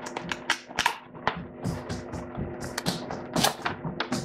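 Cardboard box being opened by hand: a run of sharp, irregular clicks, taps and scrapes of card as the flap and lid are worked loose and lifted.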